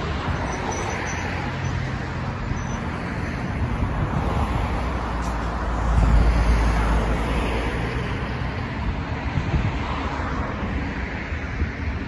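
Steady road traffic noise from cars driving past close by on a multi-lane road, with a louder low rumble about six seconds in as a vehicle goes by.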